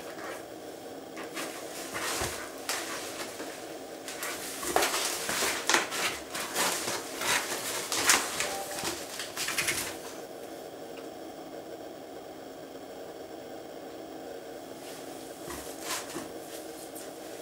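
A cat rolling in catnip inside a cardboard box, its claws and body scratching, scraping and bumping against the cardboard. The scratching comes as a dense flurry for several seconds in the middle, with only occasional scrapes and rustles before and near the end.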